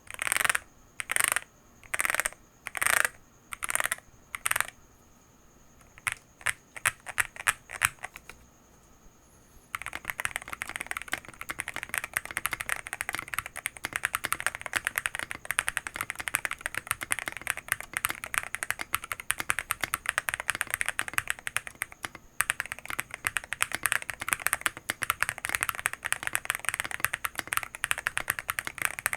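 Akko YU01 resin-case mechanical keyboard: single keys pressed one at a time, about every two-thirds of a second, then a quick run of taps and a short pause. From about ten seconds in comes continuous fast typing.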